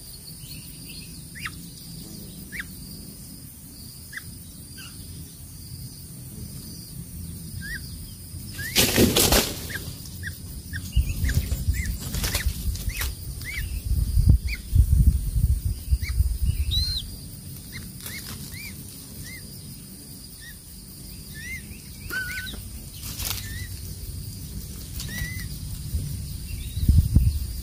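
A crested serpent eagle lands on its stick nest with a burst of wingbeats about nine seconds in, then shifts about, rustling and knocking the twigs. Short, thin chirps come and go throughout over a steady high-pitched drone.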